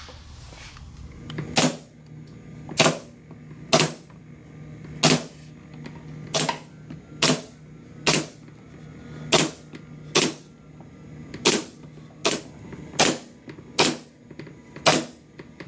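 Ridgid 23-gauge pneumatic micro pin nailer firing 3/4-inch pins into bamboo chair trim: a sharp snap about once a second, some fourteen shots.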